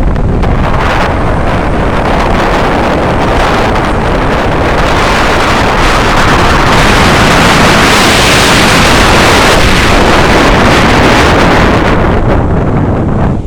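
Strong wind buffeting the microphone on a boat out at sea, a dense rushing noise over the boat's run through the water. It swells loudest around the middle.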